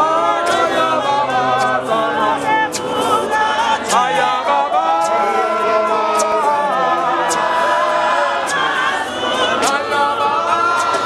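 A group of church members singing together unaccompanied, many voices in harmony. Sharp clicks come through here and there.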